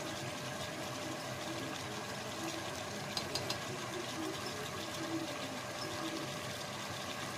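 Steady hiss and hum of a pot of chicken curry cooking over a lit gas stove burner, the spiced masala sizzling in the pot, with a few faint clicks about three seconds in.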